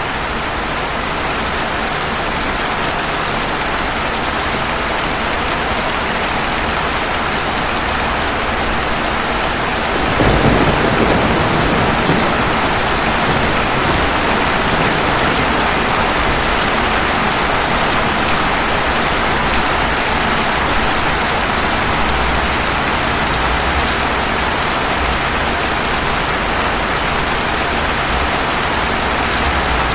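Steady rain, with a low rumble of thunder coming in about ten seconds in and rolling on under the rain.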